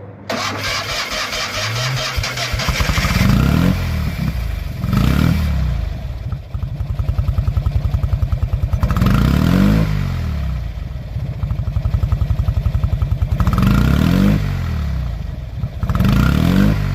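Fiat 500 engine idling and being revved, about five short blips that rise and fall back to a slow, lumpy idle between them.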